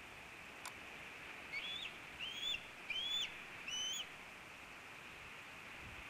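Bald eagle calling: four short, high, whistled notes about two-thirds of a second apart, each sliding up and then holding, over a steady hiss, with a faint click just before them.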